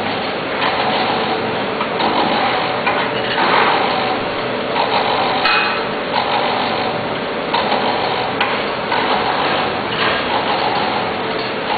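MK T20 automatic teabag packing machine running, its mechanism clattering in a regular cycle that repeats roughly every second and a quarter.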